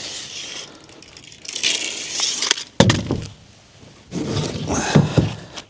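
Scraping and rubbing of materials being handled, with a sharp knock about three seconds in and more scraping near the end.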